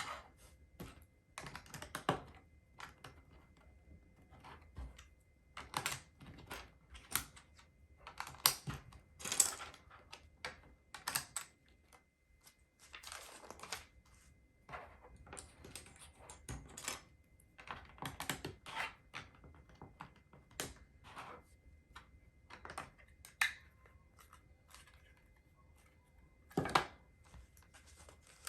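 Small plastic LEGO pieces clicking and rattling as they are picked out and pressed together, in irregular bursts of small clicks with a few sharper snaps.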